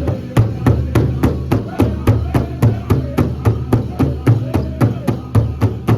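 Powwow big drum struck by several drummers in a fast, steady beat, with a group of men singing a chicken dance song over it.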